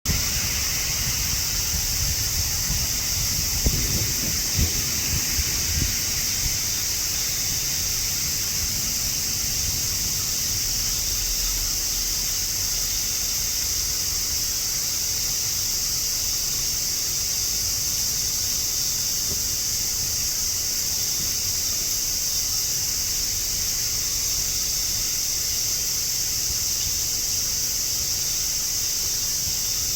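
A dense chorus of cicadas buzzing steadily without a break, with low wind buffeting on the microphone in the first few seconds.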